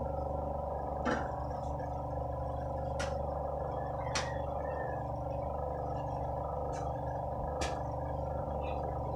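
Steady hum from an electric stand fan's motor, with five sharp clinks and knocks spread through it as kitchenware is handled.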